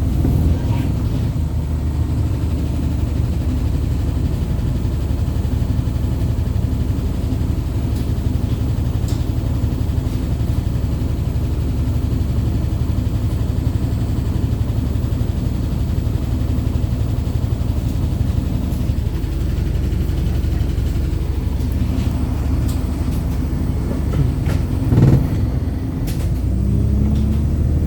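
Wrightbus StreetLite single-deck bus running at speed, its engine and road rumble steady and low. There is a brief loud burst about 25 seconds in, and near the end the engine note climbs as the bus accelerates.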